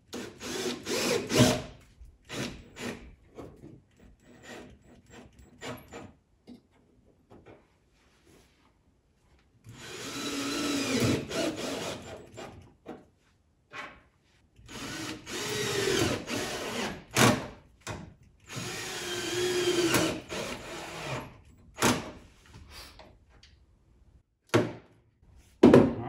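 Cordless drill/driver running in bursts while driving the mounting screws of a 7-pin trailer plug into the truck bed's sheet-metal wall. It gives a few short runs right at the start, then three longer runs of two to three seconds each, its whine bending in pitch. Clicks and knocks of handling fall in between.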